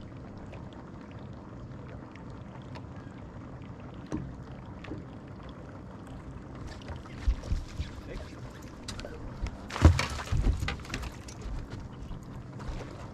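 Lake water lapping against a bass boat's hull under a steady low wash, with scattered knocks and thumps on the boat deck. These grow busier in the second half and are loudest about ten seconds in.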